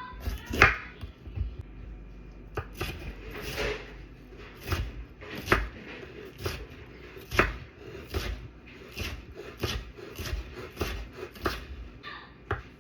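Knife chopping on a cutting board in slow, unevenly spaced strokes, a little over one a second.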